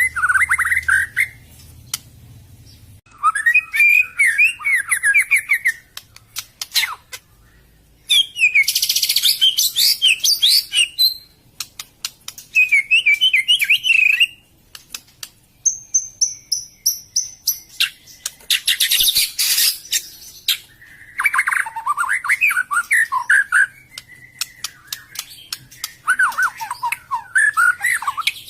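White-rumped shama (murai batu) singing: separate phrases of quick, varied whistled notes with short pauses between them, a couple of the phrases louder and harsher than the rest.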